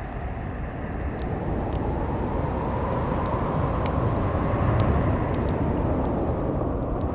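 Snowstorm wind blowing steadily with a deep rumble, growing a little louder about two thirds of the way through, with scattered sharp pops of a wood fire crackling.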